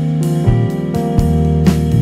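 Instrumental background music: sustained chords over changing bass notes, with a regular beat of sharp percussive hits.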